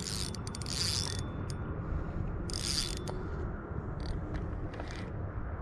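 Spinning fishing reel cranked by hand to reel in a hooked fish, its gears running with a mechanical clicking.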